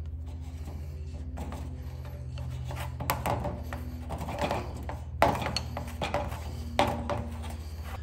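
Steel pliers scraping and clinking against the slit-cut lower portion of a golf cart axle bearing as it is worked off the axle shaft. The clicking grows irregular partway through, with the sharpest metal clink about five seconds in. A steady low hum runs underneath.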